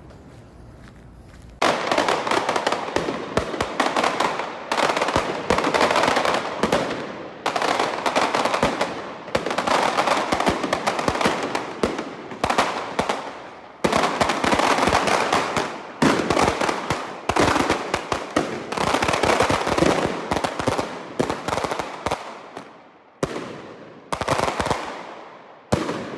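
Fireworks going off in volleys of rapid bangs, starting about a second and a half in. Each run lasts one to three seconds, one after another with brief gaps.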